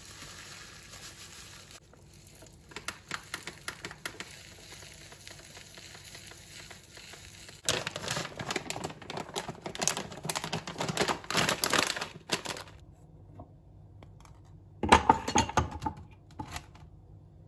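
Close handling sounds: scattered light clicks, then a long stretch of crinkling and rustling, and a shorter, louder burst of it near the end.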